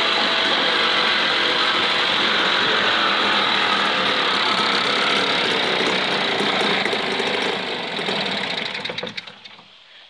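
British Seagull 40 Plus single-cylinder two-stroke outboard running steadily, its propeller churning water in a test bin. About eight seconds in it dies away and stops, burning off the fuel left in the carburettor after the fuel is shut off.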